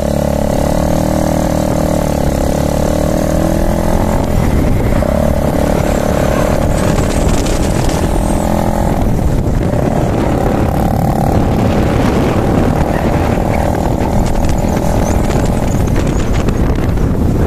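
Cruiser motorcycle engine pulling away from a standstill, its pitch rising over the first few seconds, then running steadily at road speed, with wind rushing over the microphone.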